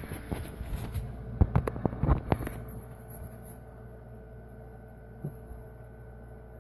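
Someone moving about close by: a quick run of knocks and thumps over about the first two and a half seconds, then only a faint steady hum, with one more small knock near the end.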